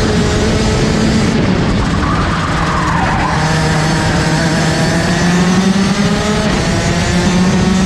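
Rotax Max DD2 kart's 125 cc two-stroke engine, heard onboard at racing speed. Its pitch falls about two to three seconds in as the kart slows into a corner, then climbs steadily as it accelerates out.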